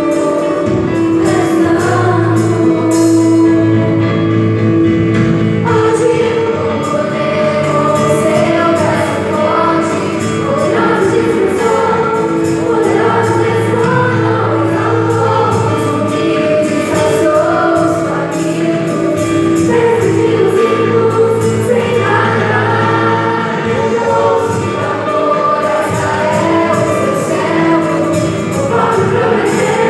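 Children's choir singing a religious song over instrumental accompaniment with a sustained bass line.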